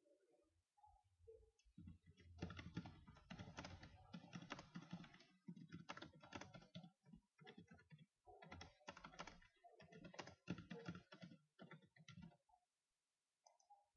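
Faint typing on a computer keyboard: quick runs of keystrokes with a short pause midway, stopping near the end.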